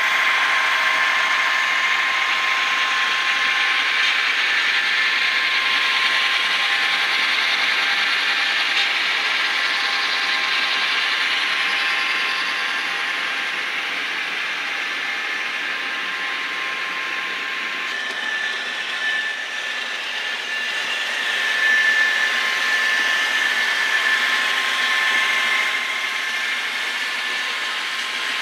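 Model train running on layout track: a steady whine from the locomotive motors and gears, with wheels rolling and clicking over the rails.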